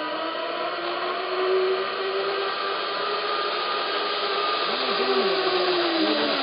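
Zipline trolley pulleys running along the steel cable: a steady whirring whine that falls slightly in pitch near the end as the rider nears the end of the line.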